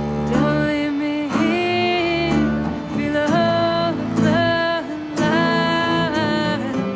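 Country-folk song: a woman singing long, held notes over acoustic guitar accompaniment.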